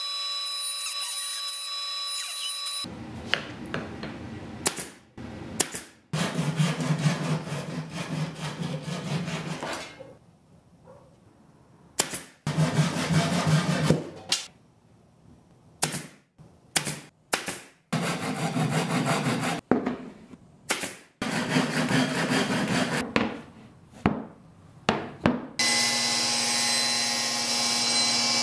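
A run of woodworking shop sounds cut together: a table saw running at first, then a string of short cutting and handling noises with sharp knocks, and near the end an oscillating belt sander running steadily.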